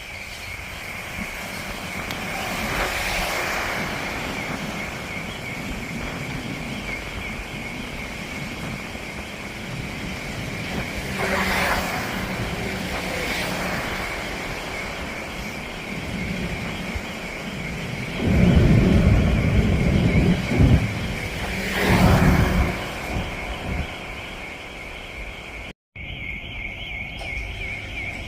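Outdoor railway-station ambience: a steady high-pitched whine throughout, with wind buffeting the microphone in a loud low rumble about two-thirds of the way through.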